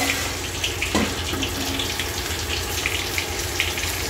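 Food frying in hot oil in a lidded steel kadai: a steady sizzle with light crackles and one sharper pop about a second in, the oil spitting hard enough to make the cook afraid of it.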